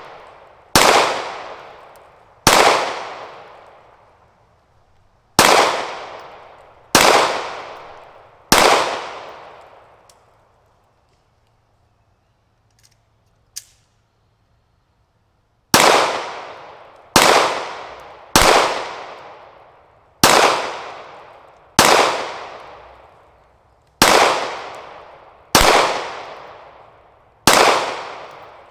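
9mm semi-automatic pistol firing single shots, each ringing out for more than a second: five shots about 1.5 to 3 seconds apart, a pause with a short click from handling the pistol, then eight more shots at a steady pace.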